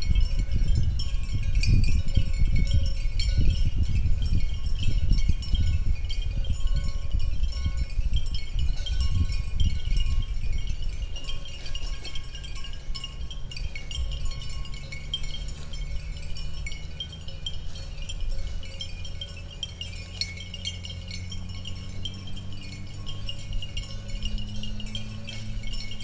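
Light chiming, tinkling tones over a low rumble that eases about halfway through; near the end a low hum slowly rises in pitch.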